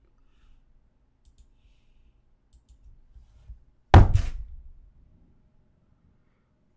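Knuckles rapping sharply on a desk about four seconds in, a loud knock with a short decay that sets off a sound-triggered camera shutter. Faint clicks come before it.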